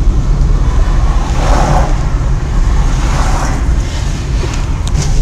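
Loud, steady low rumble of a moving vehicle with wind buffeting the microphone, swelling briefly twice.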